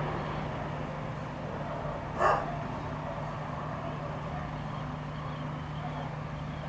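A dog barks once, about two seconds in, over a steady low hum.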